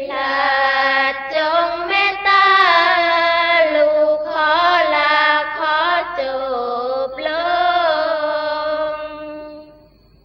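Sarabhanya chant-song in the Isan style: a high female voice holding long wavering notes with melodic turns, fading away near the end as the song closes.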